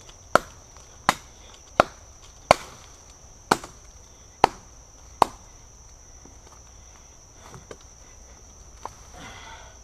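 Carbon-steel blade of a Glock 78 field knife chopping into a fallen tree trunk: seven sharp strikes, one every second or so, stopping about five seconds in.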